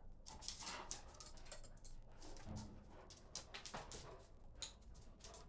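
A dog whimpering briefly among scattered light clicks and knocks.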